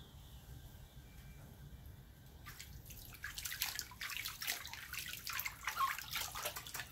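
Water splashing and sloshing in a shallow foldable PVC dog pool as a hand scoops water over a small dog standing in it. It starts about two and a half seconds in as quick irregular splashes, after a quiet stretch.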